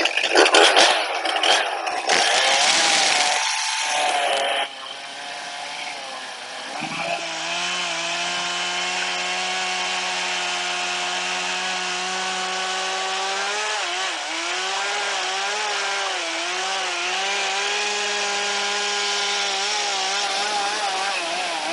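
Gas chainsaw in an Alaskan chainsaw mill ripping lengthwise through a large log. It runs at full throttle for the first few seconds, the sound drops suddenly about four and a half seconds in, and from then on it runs steadily under load, its pitch dipping briefly a couple of times.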